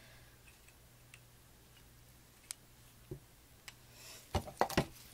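A silicone spatula scraping thick soap batter off a stick blender head and tapping against plastic beakers: a few faint scattered clicks, then a quick cluster of sharper knocks near the end, over a low steady hum.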